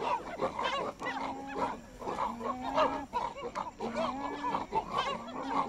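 A group of chimpanzees calling over one another: many short calls bending up and down, with lower held notes of about half a second coming again and again.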